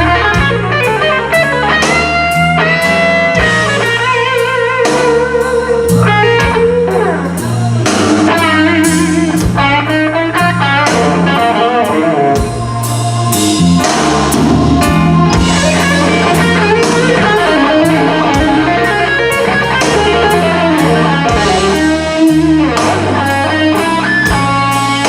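Live blues band playing an instrumental break, with an electric guitar taking the lead in bent, wavering notes over bass, drums and keys.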